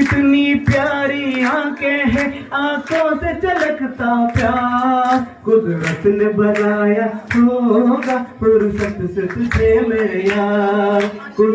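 A man singing a Hindi song through an amplified microphone, holding long wavering notes, with hands clapping along to the beat about twice a second.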